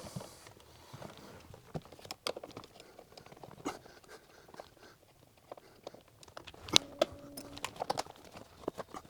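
Scattered small clicks and knocks of hand tools working the plastic and leather-covered interior trim of a car, with a short squeak late on.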